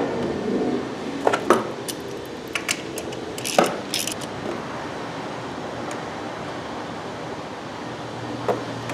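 Small metal clinks of washers, nut and socket against the alternator's output stud as a socket wrench is fitted and turned to tighten the nut: several sharp clinks in the first four seconds, then quieter.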